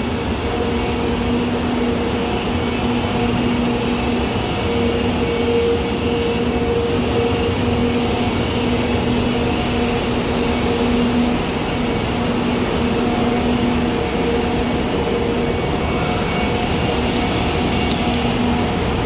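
Steady running noise inside a moving train carriage, with a low hum that drops out and comes back every few seconds.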